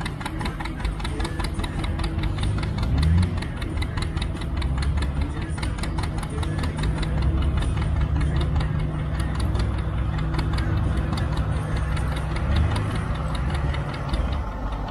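John Deere two-cylinder tractor engine popping under load as it pulls the sled, with a rapid, even popping beat over a low rumble. It is held below full throttle, in its sweet spot, with a brief rise about three seconds in.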